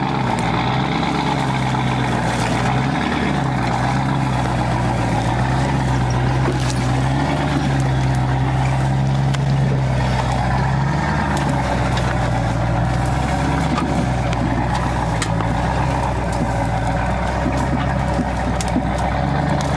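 Truck engine running steadily under load as it tows a derelict van out through the woods, its pitch rising and falling a little, with a few faint clicks.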